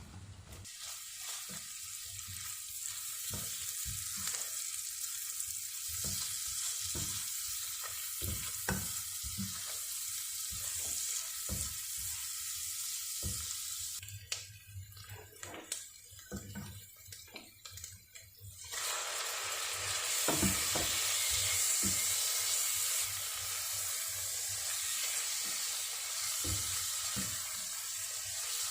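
Food sizzling in a frying pan, with scattered taps and scrapes of a utensil stirring it. The sizzle thins out a little past the middle, then comes back louder and fuller for the rest.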